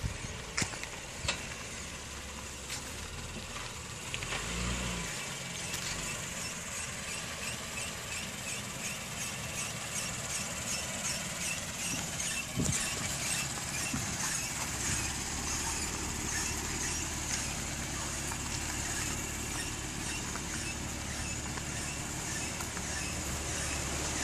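2014 Acura MDX rolling slowly with a repeating high-pitched brake squeal, short chirps a few times a second over a low steady hum, the brake noise the owner has taken the car to the dealer for.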